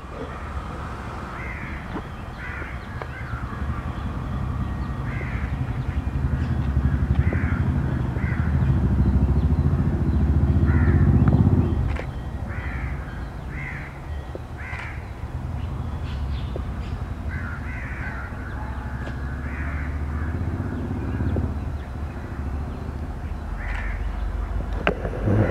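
WDP4D diesel locomotive's EMD 16-cylinder two-stroke engine approaching at the head of a passenger train: a low rumble that builds, then drops suddenly about halfway. Crows caw repeatedly throughout.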